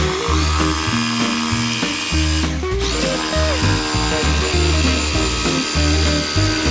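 Background music with a bass line and sustained notes, over a jigsaw whining steadily as it cuts a curve through a wooden sheet.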